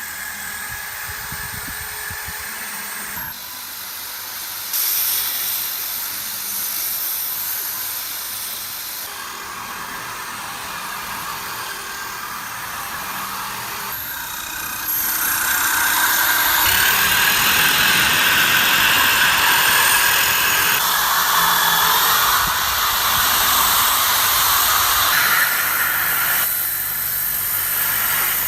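A power tool working against metal: a steady, hissing grind that changes in pitch and loudness at several abrupt cuts, louder in the second half.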